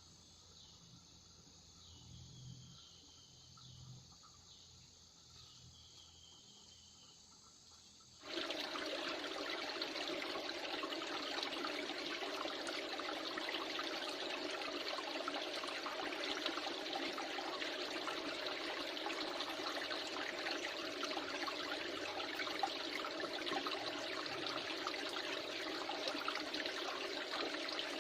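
Faint insect chirping at first. About eight seconds in, a steady rush of flowing river water starts abruptly and continues.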